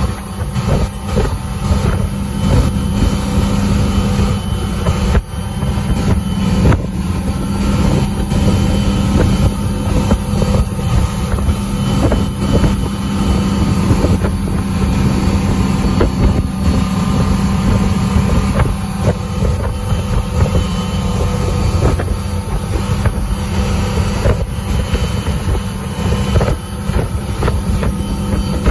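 Tow boat's engine running steadily at skiing speed, with the rush of the churning wake and wind buffeting the microphone.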